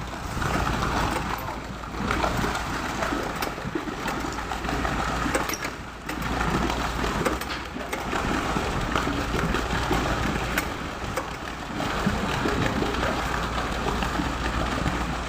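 Concrete pump truck running steadily during a pour, its engine droning low with scattered faint knocks.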